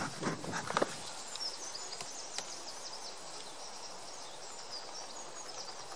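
A beekeeper's smoker bellows puffing a few times in the first second, then steady outdoor background with small birds chirping faintly.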